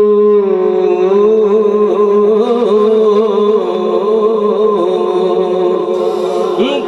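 A man reciting the Quran in melodic tajweed style. He holds one long steady note, which from about half a second in turns into a wavering, ornamented melodic line. The voice breaks briefly near the end before a new phrase.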